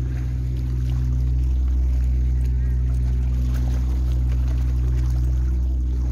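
Steady low drone of a boat engine running at constant speed, with a few faint ticks on top.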